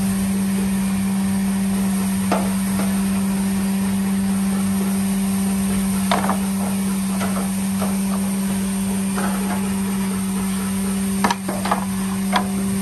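Wooden spoons knocking lightly against metal trays as they are dipped and set down: scattered single knocks, then three close together near the end, over a steady low hum.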